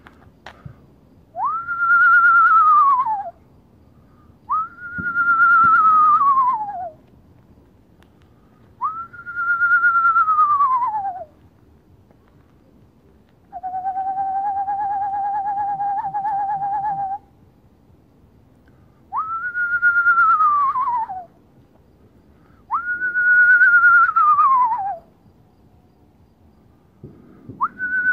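A person whistling an imitation of the eastern screech owl's whinny: six descending whistles, each about two seconds long, that jump up and then slide down in pitch, with one level held whistle imitating the owl's monotone trill in the middle.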